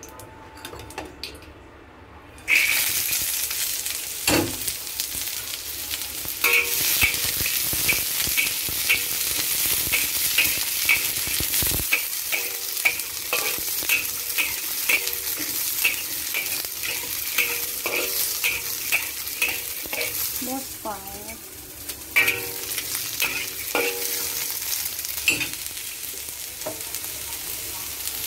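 Chopped string beans frying in hot oil in a wok: a loud sizzle that starts suddenly a couple of seconds in and runs on. The beans are stir-fried, with scraping strokes against the wok about twice a second.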